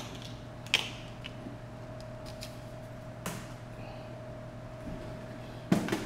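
A few sharp clicks and knocks from small parts, a small plastic box and tools being handled on a workbench: the loudest about a second in, another midway, and a close pair just before the end, over a steady hum.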